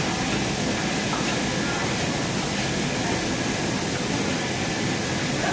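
Steady noise of running machinery: a constant hum and hiss with no rhythm or sudden sounds.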